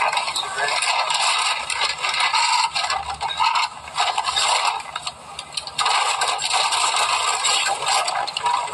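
Checkout-counter noise from old footage played back through a screen's small speaker: groceries and paper bags being handled, with many small knocks and scrapes, thin and without bass.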